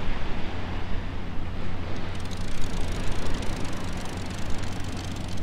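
Wind rushing on the microphone on an open beach, rising and falling in uneven gusts over a low rumble, with a faint rapid ticking for a few seconds in the middle.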